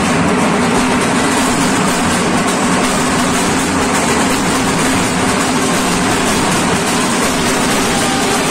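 Many dhak drums played together in a procession, blending into a loud, steady, dense din.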